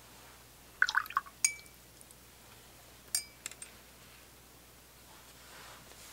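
A paintbrush swished in a glass jar of rinse water, then tapped against the glass, giving two short ringing clinks about a second and a half apart.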